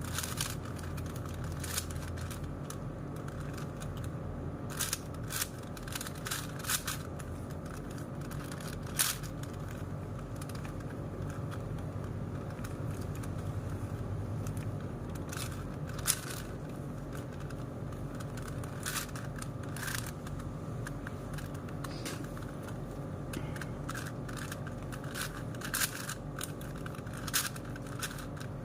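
Plastic clicks of a 4x4 Rubik's cube's layers being turned by hand, irregular and spaced a second or more apart, over a steady low hum.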